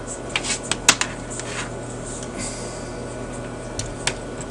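Small sharp clicks and rattles of alligator-clip test leads and wires being handled as a ground lead is clipped on, the sharpest click about a second in and another near the end, over a low steady hum.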